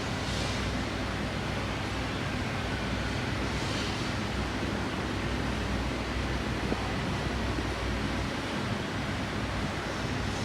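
Steady rushing background noise with a low rumble.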